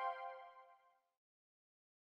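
The tail of a bell-like chime sound effect rings with several steady tones and fades out about a second in, followed by dead silence.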